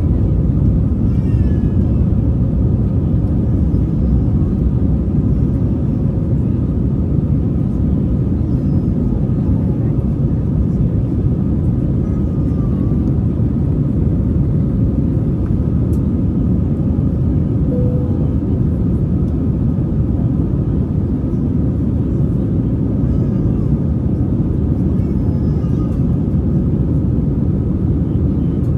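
Airbus A320 cabin noise: a steady low rumble of engines and air with a faint steady hum over it, holding even throughout.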